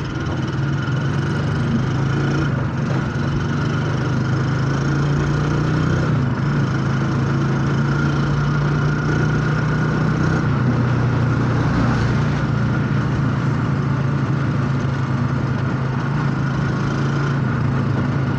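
Engine of a moving passenger vehicle heard from on board, a steady hum whose pitch shifts slightly about six and again about ten seconds in.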